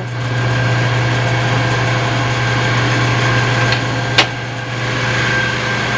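Rescue truck's diesel engine idling with a steady drone, heard close by at an open equipment compartment. A single sharp click about four seconds in.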